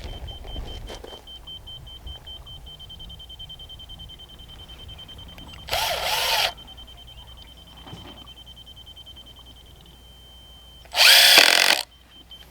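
Power drill driving screws into wooden concrete forms: two short runs of under a second each, the second louder.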